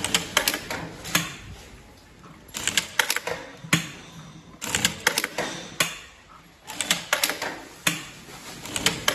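Industrial lockstitch sewing machine stitching in about five short bursts, each a quick run of sharp clicks and clacks, as it sews back and forth in its continuous back-stitch (bartack) mode.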